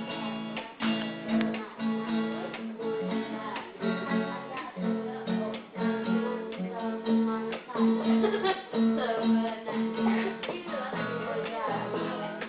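Acoustic guitar strummed in a loose jam, chord after chord in a steady rhythm.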